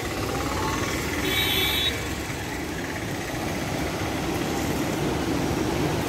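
Steady rushing roar of a waterfall's falling water, with a brief high-pitched tone about a second and a half in.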